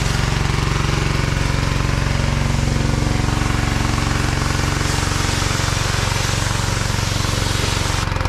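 A pressure washer running steadily, its motor and pump giving a low, even hum under the hiss of the wand's spray hitting the car's paint. The spray hiss drops away briefly near the end.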